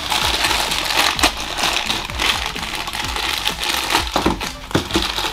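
A crinkly plastic wrapper handled and opened by hand: continuous crinkling with sharper crackles.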